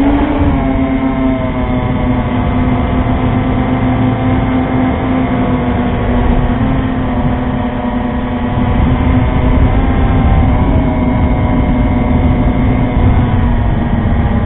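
FPV drone's electric motors and propellers buzzing steadily as it flies, heard from its own onboard camera, with a low rumble of wind noise underneath. The pitch rises briefly near the start, then holds.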